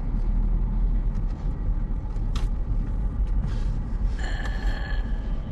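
Steady low rumble of a car's engine and tyres heard from inside the moving car. A faint high whine comes in about four seconds in.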